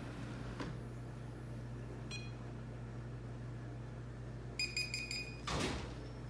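Electronic beeps from a robot vacuum: a faint chirp, then a quick run of about five short beeps, over a steady low hum. A brief whoosh follows near the end.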